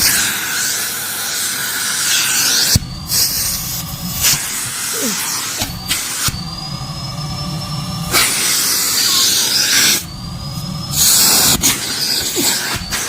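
Numatic cylinder vacuum cleaner running: a steady suction hiss with a faint motor whine that rises in pitch at a few points. The sound shifts abruptly several times.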